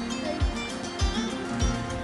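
Background music: plucked strings over a steady beat, a little under two beats a second.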